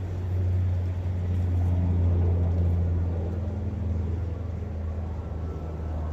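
Low, steady motor drone, like a passing vehicle, heard over faint outdoor ambience; it swells to its loudest about two seconds in and then slowly eases off.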